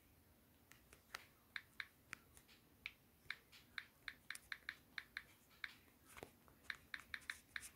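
Typing on a smartphone's on-screen keyboard: faint, light clicks at an uneven pace of about two to three a second.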